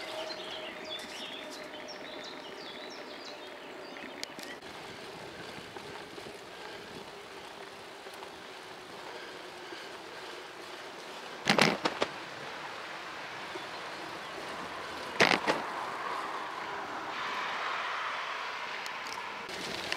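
Bicycle rolling along a paved path, a steady hiss of tyre and wind noise, with a few bird chirps in the first couple of seconds. Twice, about halfway through and again about four seconds later, the bike jolts with a short loud clatter.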